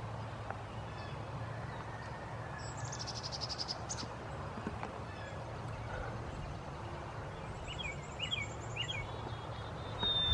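Songbirds calling across a field: a fast, high, buzzy trill about three seconds in, then another trill and three short rising chirps near the end, over a low steady outdoor rumble.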